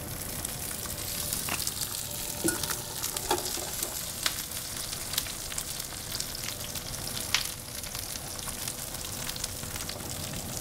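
Halved cremini mushrooms searing in hot olive oil in a stainless-steel skillet: a steady sizzle with scattered sharp pops and crackles.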